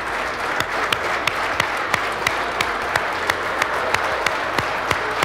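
A roomful of football players applauding, with sharp claps keeping a steady beat of about three a second through the clapping.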